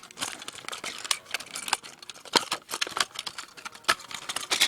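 Small toy bus models being handled, giving irregular sharp clicks and light rattling.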